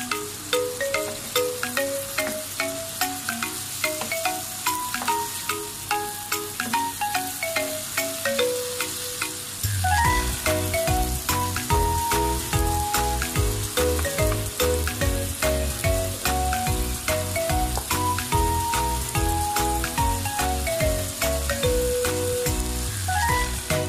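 Beef strips and onions sizzling in a frying pan, stirred with a wooden spatula, under background music: a melody of stepping notes, joined by a bass and beat about ten seconds in.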